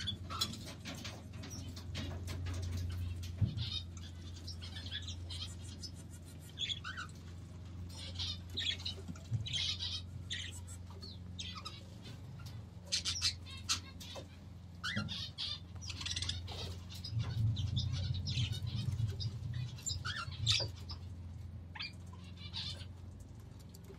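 Budgerigars and lineolated parakeets chirping and twittering in short, scattered calls, over a steady low hum.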